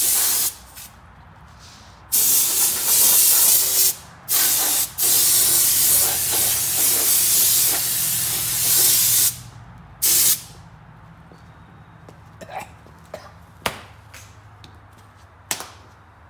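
Compressed-air siphon spray gun spraying liquid onto an engine in several bursts of loud hiss, the longest about four seconds. The spraying stops about ten seconds in, leaving only a few faint clicks.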